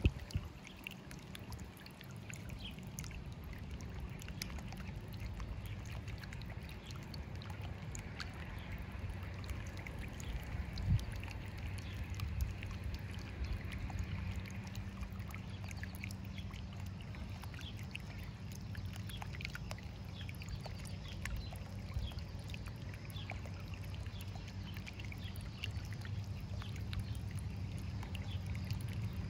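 Small bubbler fountain in a stone birdbath, water trickling and splashing steadily over the rocks over a low steady hum. Faint short chirps of small birds are scattered throughout, and there is a single soft knock partway through.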